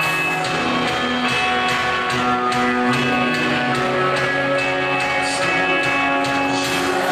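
Live band playing an instrumental passage of a worship song, led by guitar over held chords, without vocals.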